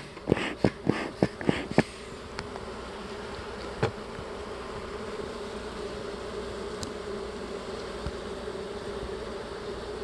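A bee smoker's bellows puffed about six times in quick succession over the first two seconds, each a short hiss of air with a click. Then honeybees in the open hive hum steadily, with a single light knock about four seconds in.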